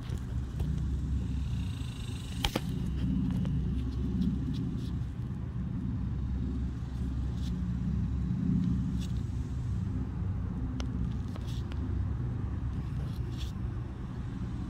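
Residential air-conditioner condensing unit running close by: a steady low hum and rumble from its compressor and condenser fan, with a few faint clicks.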